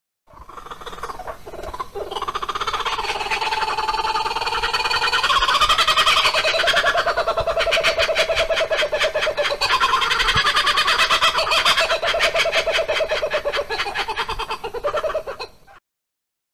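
Kookaburra's laughing call: a long run of rapid cackling notes that rise and fall in pitch. It starts softly, builds up, swells twice and breaks off shortly before the end.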